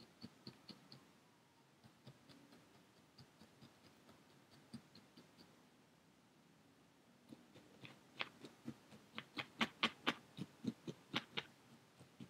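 Felting needle repeatedly stabbing orange wool roving into a foam pad, tacking the roving onto the core: soft ticks that turn, in the second half, into a faster and louder run of about four or five pokes a second.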